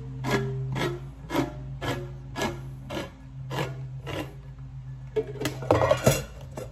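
Hand-crank manual can opener cutting around the bottom of a hot chocolate can: a crunching click about twice a second as the crank is turned. Near the end comes a louder, rougher stretch as the cut goes round.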